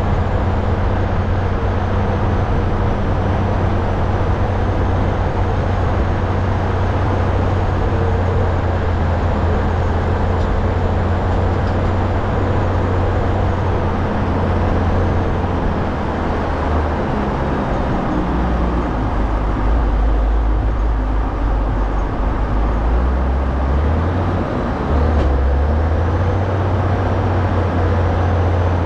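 Caterpillar motor grader's diesel engine running steadily, a loud low hum whose pitch drops and shifts several times in the second half.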